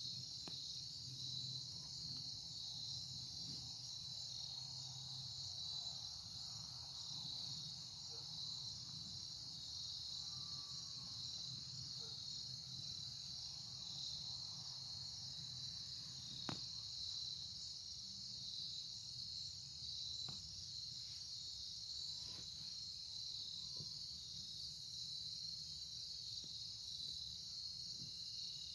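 Steady chorus of crickets, an unbroken high-pitched trill. A single faint click comes about sixteen seconds in.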